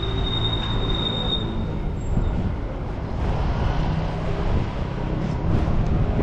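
Rail vehicle passing with its steel wheels squealing on the rails: a high, steady squeal that lasts about two seconds, then fades, over a continuous low rumble.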